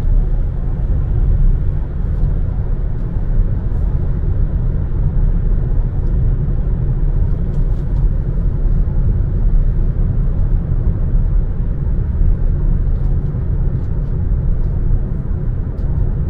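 Steady low rumble of a moving car, road and wind noise with a fainter hiss above it.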